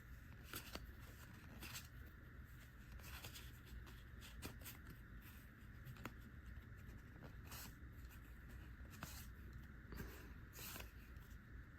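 Near silence with faint, scattered clicks and slides of trading cards being flipped through one by one.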